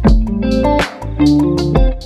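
Background instrumental music: plucked guitar notes over a bass line.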